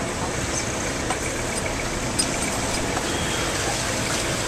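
Steady outdoor street noise: a low rumble, like traffic or an idling engine, with a few faint clicks.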